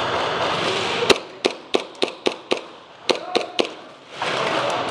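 Airsoft gun firing single shots: six sharp pops about four a second, a short pause, then three more, with a steady rushing noise before and after the shots.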